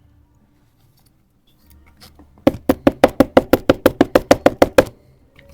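A quick, even run of about seventeen sharp knocks, about seven a second, starting about two and a half seconds in and stopping abruptly about two seconds later.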